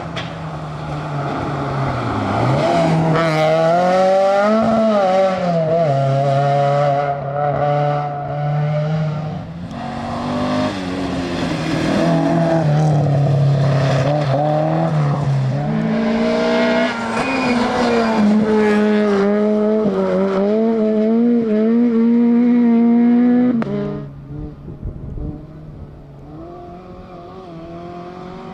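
Rally car engine at high revs, its pitch climbing, holding and dropping again and again as it changes gear and lifts off, with some tyre squeal. Near the end the engine note drops away sharply and the sound goes much quieter.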